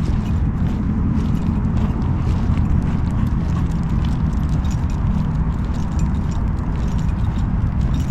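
Footsteps walking along a trail, a run of short clicks and scuffs over a steady low rumble.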